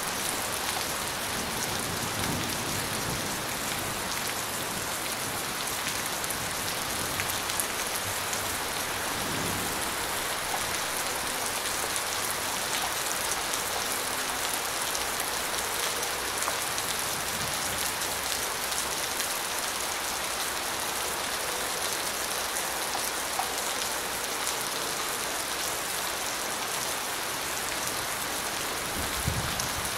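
Steady rain falling on a surface, an even dense patter, with a brief low thump near the end.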